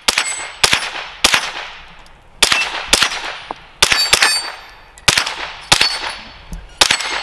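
Unsuppressed semi-automatic fire from an H&K MP5 .22 Long Rifle, a blowback-action Umarex-made clone: about ten sharp shots at an uneven pace, roughly one every half second to a second. Several shots are followed by the ring of a steel target plate being hit.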